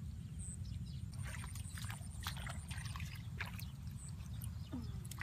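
Light splashing and dripping as hands grope in shallow muddy ditch water, with scattered small clicks through the middle, over a steady low rumble of wind on the microphone.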